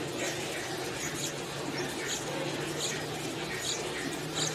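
Yellow-vented bulbul nestlings begging at the nest with thin, high cheeps, about two or three a second.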